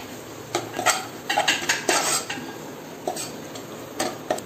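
A steel spoon stirring chopped tomatoes into a thick masala in a saucepan, scraping and knocking against the pan in short, irregular strokes.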